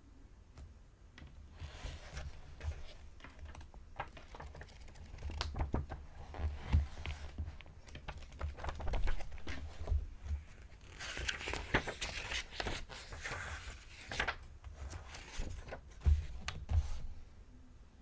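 Paper pages being turned and flipped through: a run of quick, crisp rustles and snaps with low handling thumps. A denser stretch of rapid flipping starts about eleven seconds in and lasts some three seconds.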